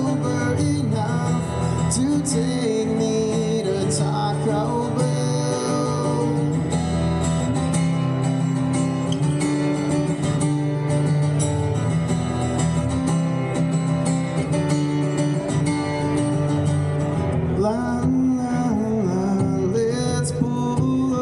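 Live country music from a solo performer: acoustic guitar strummed through a PA, with singing.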